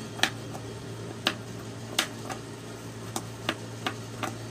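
Scissors snipping through fabric, about eight short sharp cuts at uneven intervals as a shirt collar's point is trimmed, over a steady low hum.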